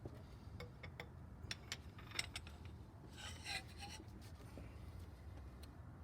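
Faint scattered metal clicks and light taps of hand tools, with a short scrape about three seconds in.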